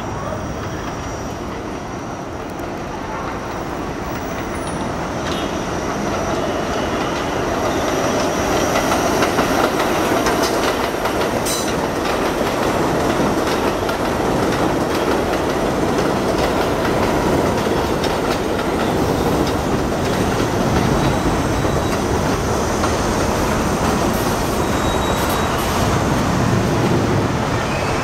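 R32 subway train running on an elevated steel structure: a steady rumble and clatter of wheels on rails that grows louder over the first eight seconds as it comes into the station, then stays loud, with a faint high squeal from the wheels.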